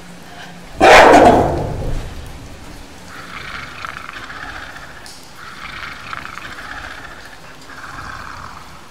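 A sudden, loud animal-like call about a second in that fades away over about a second. It is followed by three stretches of high whimpering.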